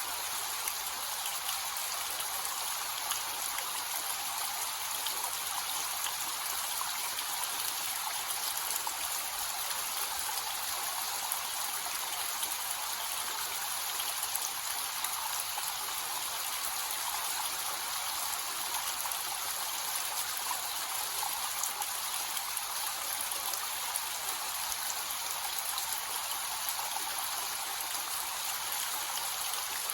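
Small waterfall with a light flow, water splashing and trickling into a pool with a steady, even rush and fine spattering.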